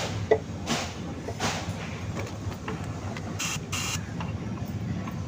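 Hand tools and metal parts being worked as a motorcycle's starter assembly is tightened: a click, then several short scraping rasps over a low steady hum.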